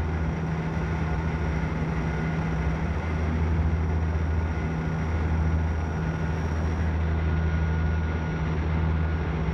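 Aircraft cabin noise during the approach to landing: the engines' steady low drone with a thin steady whine above it.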